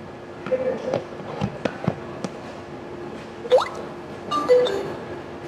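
Smart lock being handled during set-up: scattered light clicks and taps, a quick rising squeak about three and a half seconds in, then two short electronic beeps.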